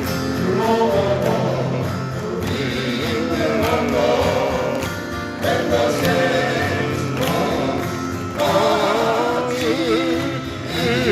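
Male vocal quartet singing in close harmony, with acoustic guitar accompaniment.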